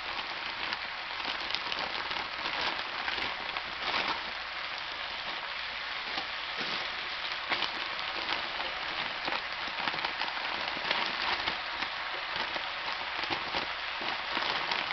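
Chicken sausage and onions frying in a hot wok: a steady sizzle with scattered crackles and pops while whole green beans, frozen, are poured in.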